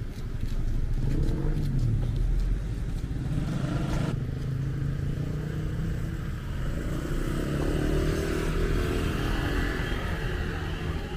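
Street traffic beside a beachfront road: motorbike and car engines passing with a steady low rumble.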